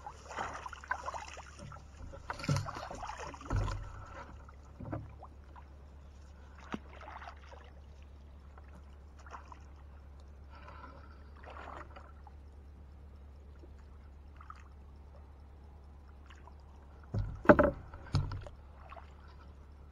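Thumps and knocks on the hull of a small flat-bottomed boat as a man moves about in it and handles the pole, with light splashes of water. A cluster of the loudest thumps comes near the end, over a steady low hum.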